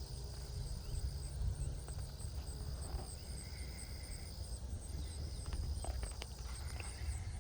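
Insects singing in the background, a steady high buzz and a rapid, evenly pulsed chirp, over a low wind rumble on the microphone, with a few faint clicks about six seconds in.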